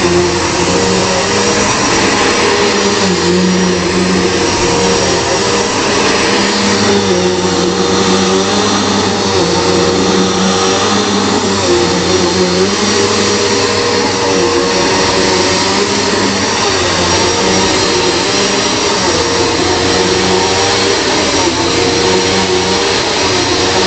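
Bissell PowerForce Turbo Pet upright vacuum cleaner running steadily, its motor pitch dipping and rising every second or two.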